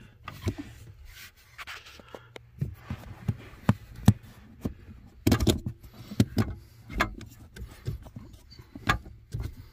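Scattered metallic clicks, knocks and scrapes as a loosened needle bearing is worked by hand off the upper steering shaft, the loudest knocks about four and five seconds in, over a steady low hum.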